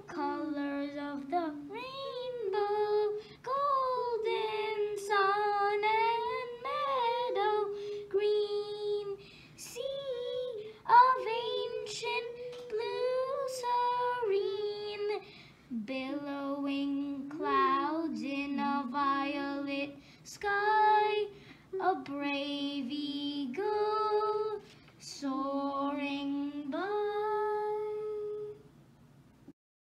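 Children's voices singing a slow song together in one melody line, with held, gliding notes; the singing stops shortly before the end.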